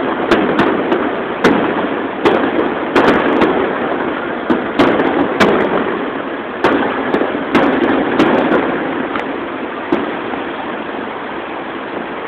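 Aerial fireworks shells bursting in a rapid string of sharp bangs over a steady din. The bangs thin out in the second half, and the last comes about ten seconds in.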